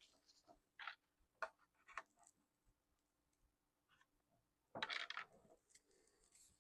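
Near silence broken by a few faint clicks and taps of small objects being handled, with a brief louder rustle about five seconds in.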